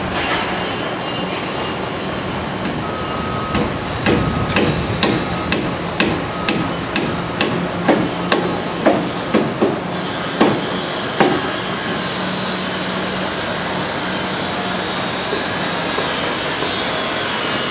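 Construction-site hammering: a run of about fifteen sharp hammer blows at roughly two a second, stopping after about eleven seconds, over steady site noise with a low hum.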